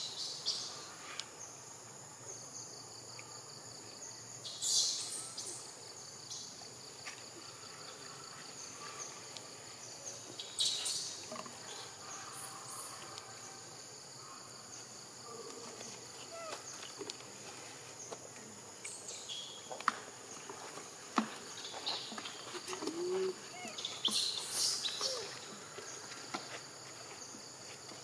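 Steady high-pitched insect chorus that swells louder three times, with scattered sharp clicks and rustles.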